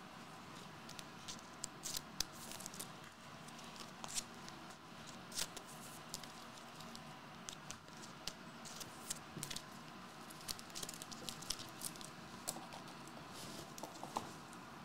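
Faint, irregular small clicks and rustles of trading cards being handled and shuffled by hand on a table mat.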